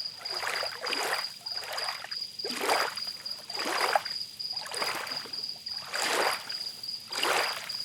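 Water splashing in repeated uneven surges, one or two a second, over a steady thin high-pitched tone.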